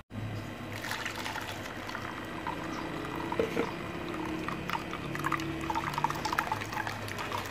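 Blended garlic-and-ginger water pouring through a stainless steel mesh strainer and trickling and splashing into a bowl, with many small splashes and drips.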